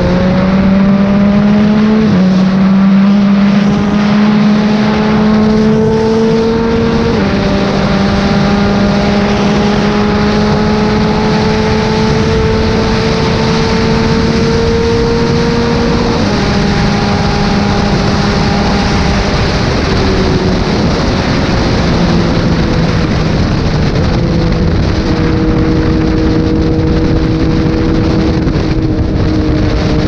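Yamaha MT-09's three-cylinder engine heard from the rider's seat, pulling and rising in pitch through the gears with upshifts about 2, 7 and 16 seconds in, then easing off and holding a steadier cruise. Wind rush is mixed in with it.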